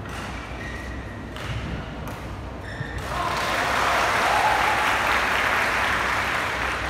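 Spectators in the hall applauding and cheering. It starts about three seconds in, swells, and slowly fades, with scattered voices before it.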